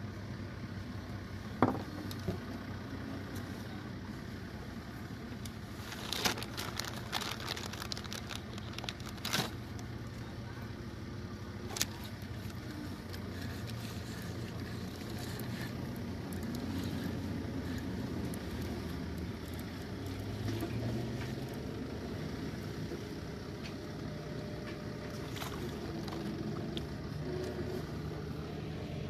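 A boat engine running steadily as a low hum that swells a little and shifts in pitch about twenty seconds in, with a few sharp knocks in the first half.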